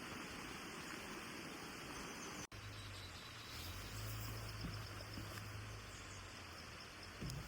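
Faint outdoor ambience: a steady hiss, broken by a brief cut about two and a half seconds in, after which a low rumble joins it.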